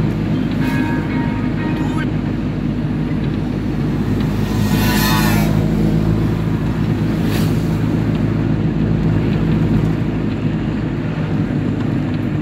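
Car driving along a road, heard from inside the cabin: a steady low rumble of engine and tyres, with a brief rush of noise about five seconds in.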